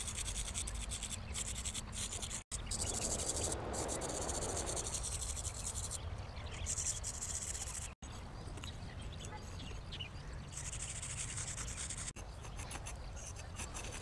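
Scratchy rubbing of drawing strokes on a rough road surface, with a high, fine insect-like buzz over it; the sound breaks off abruptly three times at edit cuts.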